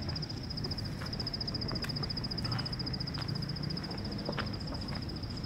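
An insect trilling: one continuous, rapidly pulsing high-pitched trill, over a low outdoor background rumble with a few faint knocks.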